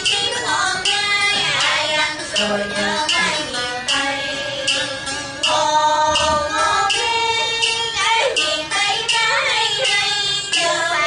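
A woman singing a Southern Vietnamese song in a high voice with musical accompaniment.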